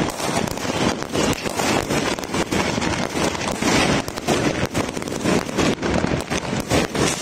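Many fireworks and firecrackers going off at once across a neighbourhood: a dense, unbroken barrage of pops, crackles and bangs.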